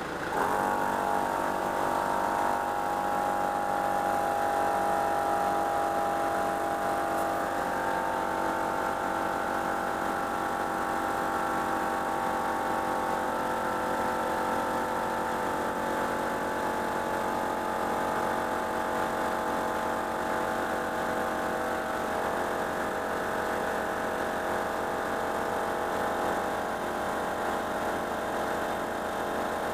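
12-volt DR Air Pro Flow portable air compressor switching on about half a second in and running steadily as it pumps up a tyre, with the Nissan Patrol's ZD30 diesel engine idling underneath.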